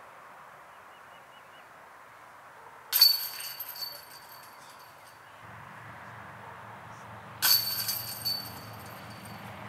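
Disc golf putts hitting the chains of a metal chain basket, twice: a sudden clang and chain rattle about three seconds in and another late on. Each is a putt caught by the chains and made.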